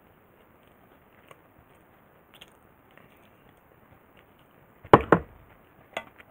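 Quiet, then two sharp knocks close together about five seconds in and a lighter click a second later, as the aluminium hangō mess tin is handled on the table.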